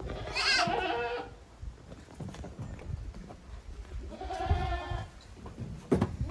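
Goat kids bleating: one wavering bleat at the start and another about four seconds in, with a few sharp knocks near the end.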